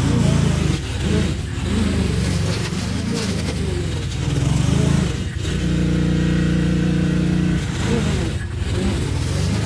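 Small petrol engine of yard equipment running. Its pitch wanders up and down, then holds steady for about two seconds past the middle.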